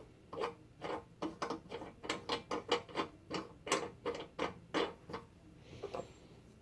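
Irregular clicks and taps of a nozzle ring being handled and fitted onto the nozzle mount of a brass case annealing machine, a few knocks a second, thinning out near the end.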